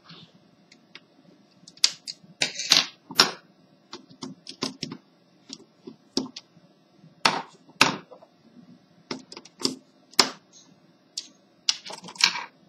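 Irregular clicks and knocks of small screwdrivers being picked up, set down on a desk and turned in the screws on the plastic underside of an HP 6530b laptop, some coming in quick clusters of two or three.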